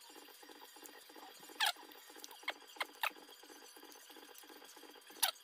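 Sunflower seeds in the shell cracked open between the teeth, one at a time: a handful of sharp cracks scattered through a few seconds. A faint, fast, steady pulse runs in the background.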